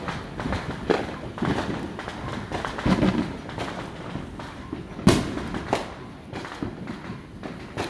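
Consumer fireworks and firecrackers going off at irregular intervals, a mix of bangs and pops, with the loudest sharp bang about five seconds in.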